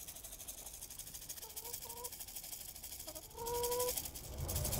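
Backyard hens calling: two short calls about a second and a half in, then a longer, louder drawn-out call near the end.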